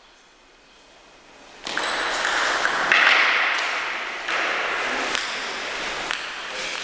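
Celluloid table tennis ball pinging off bat, table and floor in a gym hall. About a second and a half in, a loud, sustained rush of noise starts suddenly and carries on to the end, with a few sharp clicks standing out in it.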